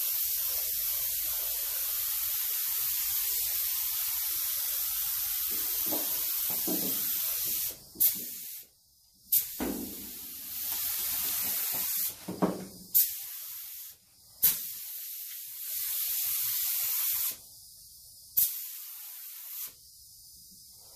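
Gravity-feed paint spray gun hissing as it sprays paint onto sheet-metal panels: one long steady pass, then from about eight seconds in the spray stops and starts several times, with a sharp click or pop each time it cuts in or out.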